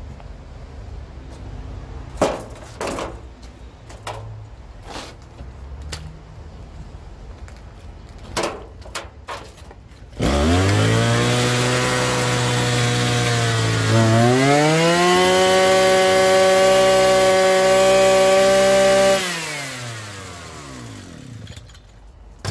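A backpack two-stroke brush cutter engine, its oil-clogged muffler just burnt clean, catches and idles, then revs up and holds high for a few seconds before it is shut off and winds down. Before it starts there are a few scattered knocks.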